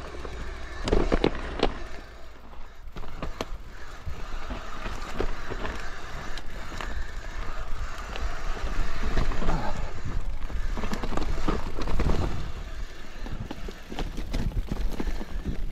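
Mountain bike riding down a rough, rutted dirt track: tyres rolling and clattering over stones and ruts, with knocks and rattles from the bike and wind rumbling on the microphone.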